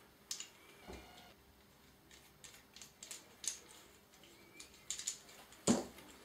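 Light, irregular metal clicks and taps of aluminium bearing-installer pieces being handled and fitted together, with a sharper knock near the end.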